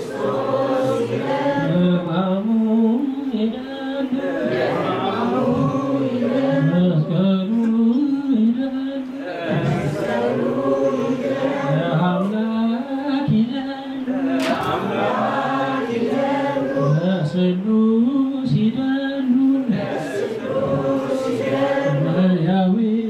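A congregation chanting together in unison, an Ethiopian Orthodox Tewahedo liturgical chant, going over a short melodic phrase again and again without pause.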